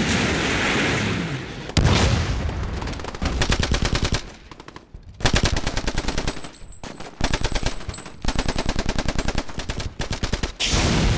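An explosion's roar dies away over the first couple of seconds, then rapid machine-gun fire follows in several long bursts with short pauses between them.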